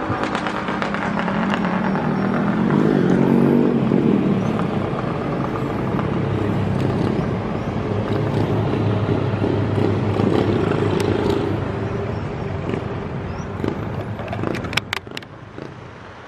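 A vehicle engine running as it passes, its pitch rising and falling about three seconds in, then a steady hum that fades near the end, with a few sharp clicks just before it dies away.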